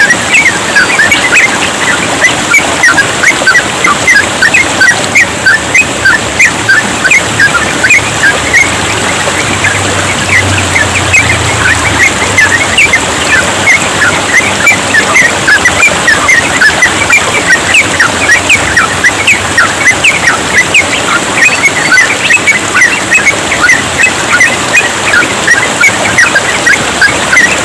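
Yellow-vented bulbuls singing in rapid, continuous chirps, many short notes a second, over steadily trickling water.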